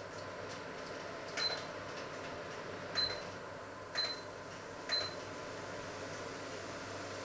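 Kitchen appliance's control panel beeping four times, short high beeps with a click as each button is pressed, about a second apart. A steady low hum runs underneath.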